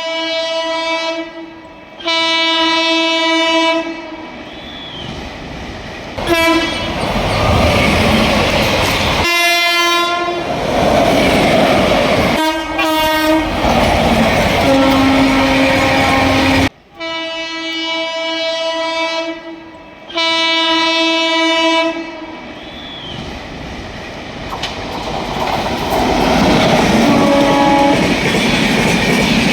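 WAP-7 electric locomotive sounding its horn in two long blasts, then the train passing at speed with a loud rumble and wheel clatter and more short horn blasts. The horn is lower-pitched once it has gone by. The same sequence of two long blasts and a passing train comes again about halfway through.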